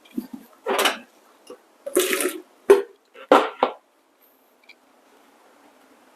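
Water splashing out in a few short pours, with a couple of sharp knocks of coffee gear being handled and set down, then quiet.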